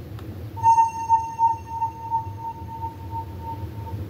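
A single held synthesizer note, starting about half a second in, with a slow wobble, fading away over about three seconds. It is ambient music from a stargazing program, heard over a steady low hum.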